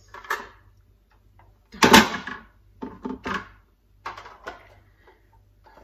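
Kitchen things, among them a grater, being handled and put away: a series of separate knocks and clatters, the loudest about two seconds in.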